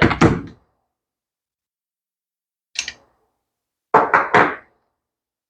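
Short knocks and clatter of small metal carburetor parts being handled on a workbench while the metering diaphragm cover comes off: one burst at the start, a brief one about three seconds in, and a quick run of three or four knocks about four seconds in.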